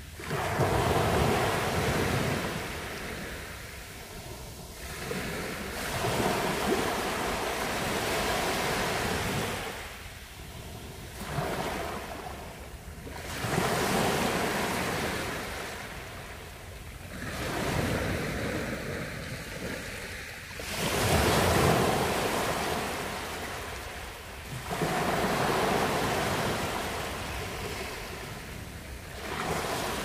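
Small sea waves breaking and washing up a beach. Each surge of surf swells and fades, a new one every four to five seconds.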